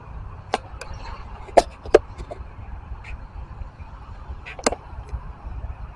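Scattered sharp knocks over a steady low rumble: a pair of loud ones about two seconds in, a single loud one near five seconds, and a few fainter ones between.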